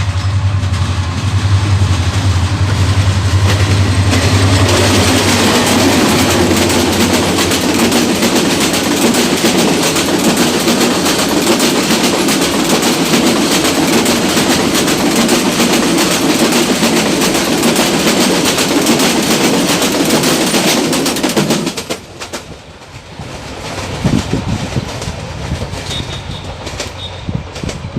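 Diesel-hauled passenger train passing close by. A steady low engine hum opens it, then the carriages rattle over the rail joints with a dense clickety-clack. The rattle drops off sharply about three-quarters of the way in, leaving a quieter rumble.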